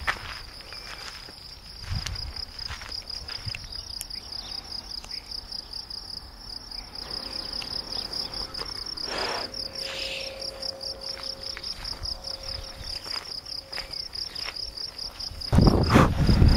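Insects in long grass chirping in a steady, high-pitched, fast-pulsing trill. Near the end, wind buffets the microphone with a loud rumble.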